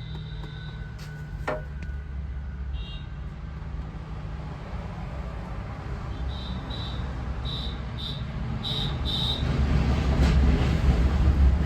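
Low, steady engine rumble that grows louder toward the end, with a run of about six short, high-pitched beeps in the middle.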